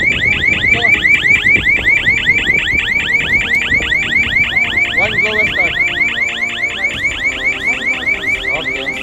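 Pressurized welding habitat's control-unit alarm sounding: a loud, fast repeating rising sweep, about five or six a second. It is signalling low pressure inside the habitat at start-up.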